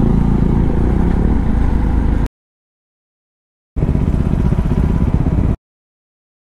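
KTM Duke 390 single-cylinder engine with an Akrapovic exhaust running under way, mixed with wind rush. The sound cuts off abruptly a little over two seconds in, gives way to dead silence for about a second and a half, returns for about two seconds, then cuts off again.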